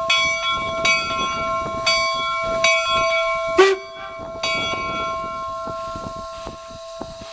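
Steam locomotive bell ringing, struck about once a second, with a sharp knock about three and a half seconds in. The strikes then fade away.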